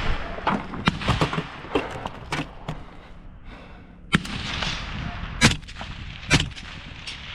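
A string of gunshots at irregular spacing, about nine sharp cracks, several fainter ones in the first few seconds, a short lull around three to four seconds in, and the two loudest near the end.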